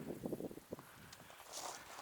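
Faint footsteps on a trail, a few soft steps and then a light rustle near the end.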